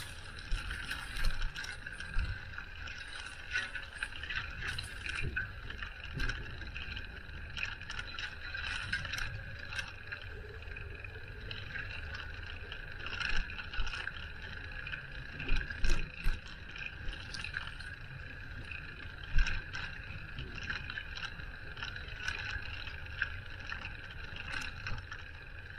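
Riding noise from a moving bicycle: a steady low rumble with frequent small rattles and knocks over bumps, a few louder knocks past the middle, and a steady high-pitched whine underneath.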